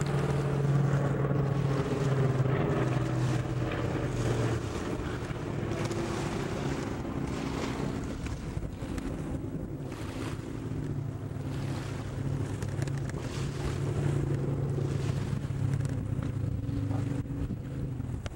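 Propeller-driven water bomber flying overhead: a steady engine drone whose pitch sinks a little partway through, with wind buffeting the microphone.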